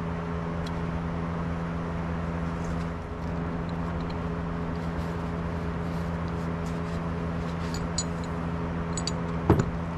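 A steady mechanical hum with a constant pitch runs throughout. Light clicks are scattered through it, and a sharper knock comes near the end.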